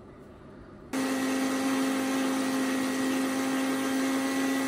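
Electric stand mixer running, its beater mixing pancake batter in a stainless steel bowl: a steady motor hum that starts about a second in.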